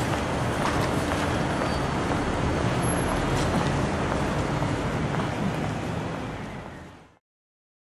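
Steady traffic noise of a busy city street, fading out about six seconds in to silence.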